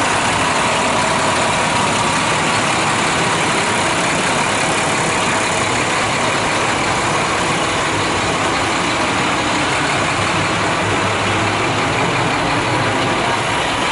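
Heavy fire brush truck's diesel engine idling steadily.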